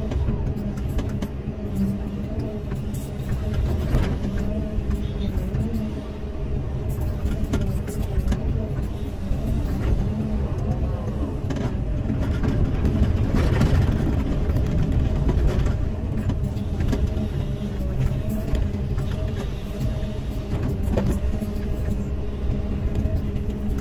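Caterpillar 320E hydraulic excavator's diesel engine running steadily under digging load, heard from the operator's cab as the boom and bucket work soil, with a louder, noisier spell about halfway through.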